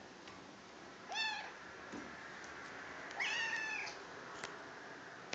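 Kitten meowing twice in a high voice: a short meow about a second in, then a longer one about three seconds in.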